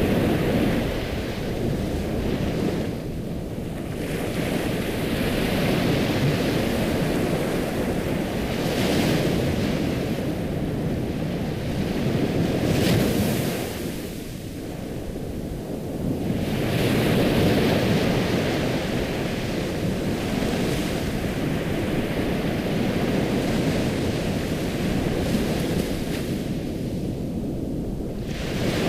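Ocean surf: waves breaking and washing in a continuous rush that swells and falls back, with three quieter lulls between the surges.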